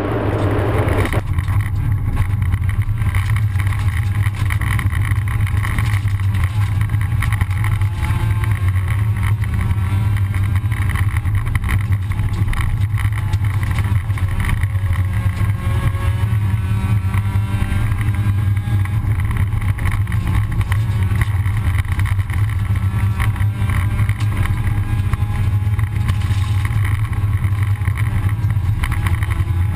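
Rally car's engine running hard under load, heard from inside the cabin as a loud, steady deep drone. Gravel ticks and rattles against the car's body throughout.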